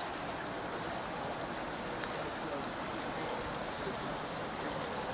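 Steady rush of running water, with a few faint ticks.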